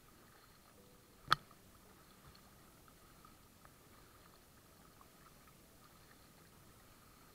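Near silence apart from one sharp knock about a second in.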